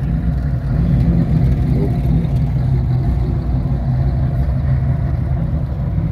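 A car engine idling, a steady low rumble.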